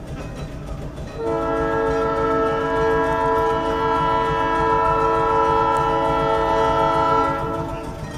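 Air horn of a red electric interurban car, one long blast of several tones sounding together as a chord. It starts about a second in, holds steady for about six seconds and stops near the end, over a steady low rumble.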